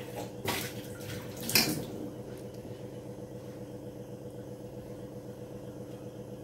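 Two sharp knocks about a second apart near the start, a ladle against the metal cooking pan, over a steady low hum.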